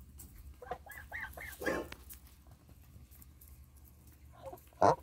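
Landes geese giving a run of about four short, soft calls about a second in, then one louder short call near the end.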